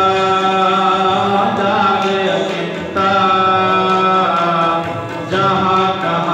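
Sikh shabad kirtan: men singing a hymn in long held phrases to harmonium accompaniment, with short breaks between phrases about three and five seconds in.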